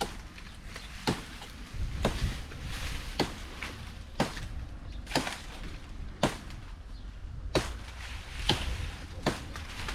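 A blade chopping into tree branches: about ten sharp, separate blows, roughly one a second.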